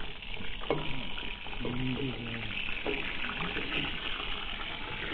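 Low, muffled voices talking in the background over a steady hiss.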